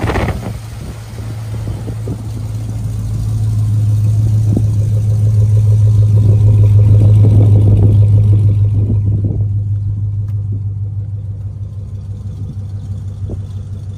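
Chevrolet Avalanche's 5.3 Vortec V8 idling steadily with a low, even exhaust note. It is loudest about six to eight seconds in and fades toward the end.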